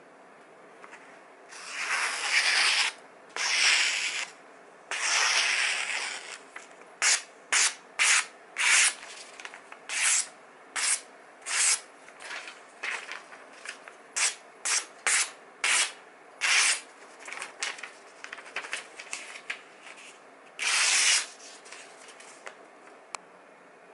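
Kitchen knife with a mirror-polished edge slicing through a hand-held printed catalogue page: three long drawn slices, then a quick run of about a dozen short cuts, and one more slice near the end. Each cut is a short, dry hiss through the paper, the sharpness test for a freshly polished edge.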